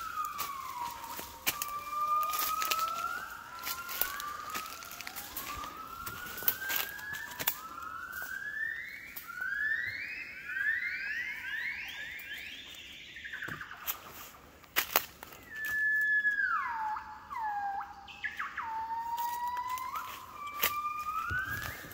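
Southern yellow-cheeked crested gibbons singing: long sliding whoops, then a series of rising notes that climb higher and come faster, and near the end notes that fall steeply and level off. Scattered crackles of leaf litter underfoot sound throughout.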